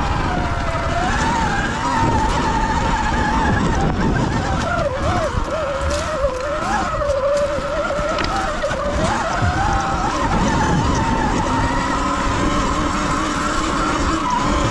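Sur Ron electric dirt bike being ridden on a trail: its motor whine rises and falls in pitch with the throttle, over a steady rush of wind and tyre noise.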